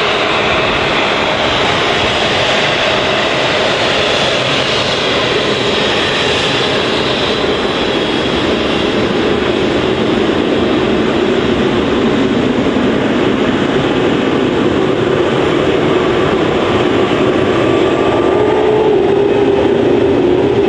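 Airbus A380's four turbofan engines running as the airliner taxis past: steady, loud jet noise with a high whine over it. The whine rises slightly and the sound gets louder near the end as the aircraft turns.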